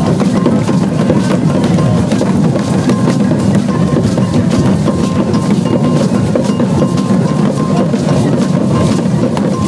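Traditional Adjogbo dance drumming: several tall wooden hand drums and other percussion played together in a dense, unbroken rhythm.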